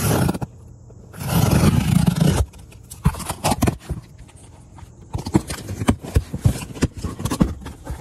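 Utility knife slicing through packing tape on a cardboard box, two loud rasping tears in the first couple of seconds, followed by the cardboard flaps being pulled open and crumpled packing paper rustling with many small crackles.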